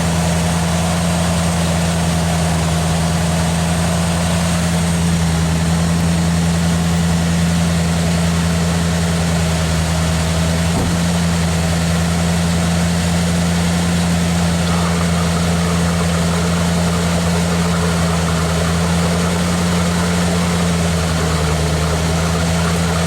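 1987 Ford Bronco engine, freshly overhauled and just installed, idling steadily on its first run with a low, even hum.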